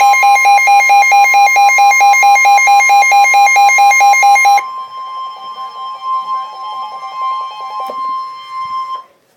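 Emergency Alert System alert tones before a tornado warning message: a loud electronic tone pulsing about four or five times a second over a steady tone. The pulsing stops about four and a half seconds in, and the steady tone runs on more quietly until it cuts off near the end.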